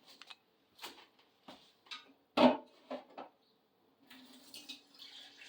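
Plastic paint cups and containers being handled: a string of light clicks and knocks, with one louder knock about halfway through. About four seconds in, a steady pouring sound of thin liquid acrylic paint begins.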